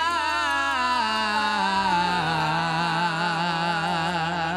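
Two male voices singing a long held note together in harmony, with a wide vibrato, over a band with harps. The lower accompaniment steps down twice in pitch beneath the held note.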